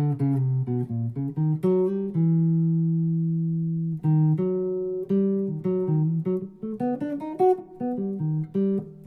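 Guitar playing a single-note jazz lick over E minor that starts on and sits on the major seventh, an 'out' sound against the minor key: a quick run of notes, one note held for about two seconds, then another quick run.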